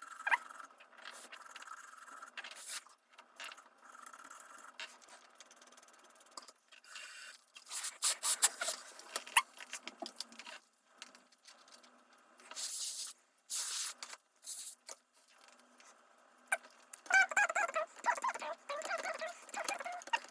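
Handling noise from reassembling a ThinkPad T520 laptop: scattered clicks, taps and scrapes of plastic and metal parts. In the last few seconds a rapid run of squeaky chirps starts.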